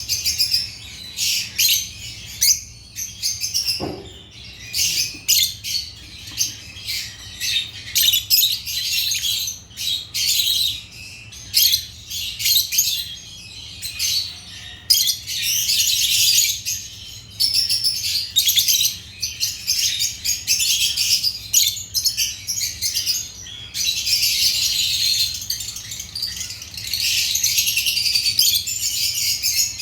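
African lovebirds (Agapornis) chirping and chattering without a break in rapid, high-pitched calls, with one short thump about four seconds in.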